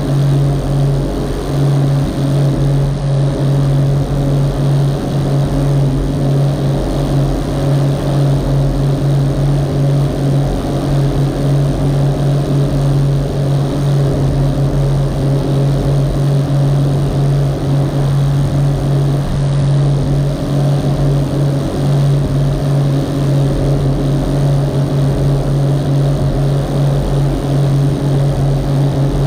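Rigid inflatable boat's engine running at a constant cruising speed, a loud steady drone, with water rushing past the hull.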